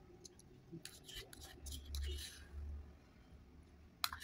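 Metal spoon scraping and clicking against a small plastic dessert cup while eating, with scattered faint scrapes and a sharper cluster of clicks about four seconds in.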